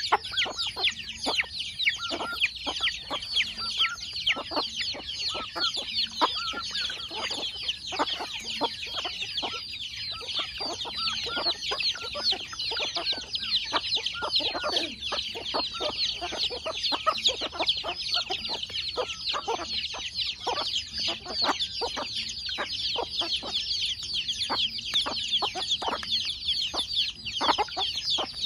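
A flock of chickens: many chicks peeping continuously in high, falling chirps that overlap, with hens clucking in short calls among them.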